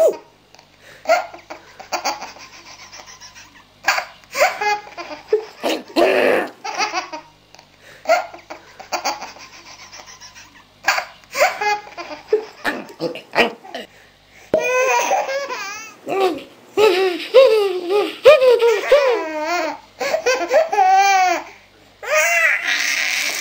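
A baby laughing in repeated bouts between a man's silly vocal noises; from about fourteen seconds in the laughter comes in longer, louder runs.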